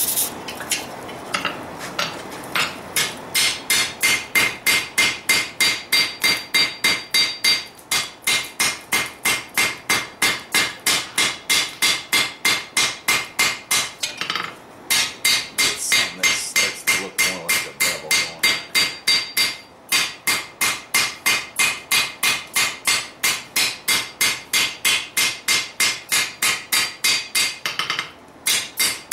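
Hand hammer striking a hot steel sword blade on an anvil, a fast steady run of blows about three a second with a ringing tone, broken by a few short pauses. It is the first rough pass hammering in the edge bevel of the blade.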